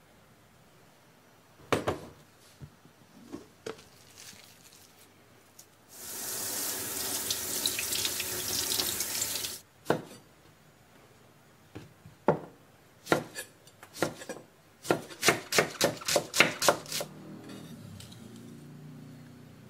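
A kitchen tap runs for about three and a half seconds. Then a kitchen knife cuts on a wooden cutting board: a few spaced cuts, then a quick run of cuts.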